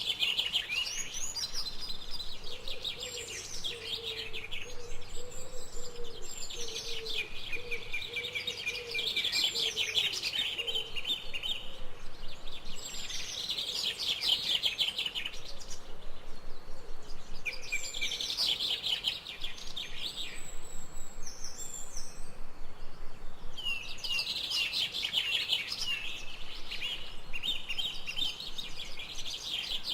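Birds singing: bouts of rapid, high chirping and trilling lasting a few seconds each, recurring throughout over a soft background hiss. In the first third, a lower string of short, evenly repeated notes runs beneath them.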